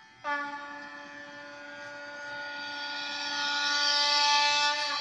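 A single steady horn-like note that starts suddenly, holds one pitch for nearly five seconds while swelling louder and breathier, then stops.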